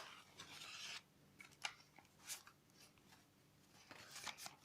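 Faint handling of a power bank's packaging: a soft scrape or rub in the first second, then a few light clicks and rustles.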